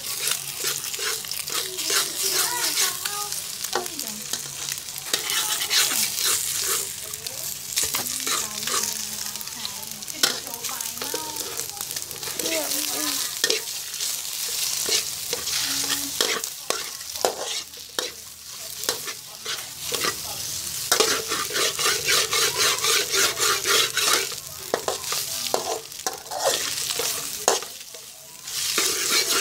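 Metal spatula scraping and clacking against a steel wok in quick repeated strokes as fried rice with diced vegetables is stir-fried, over a steady sizzle of frying.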